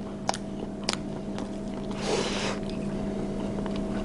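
Someone eating: chopsticks clicking against a ceramic bowl a few times, chewing, and a short slurp about halfway through.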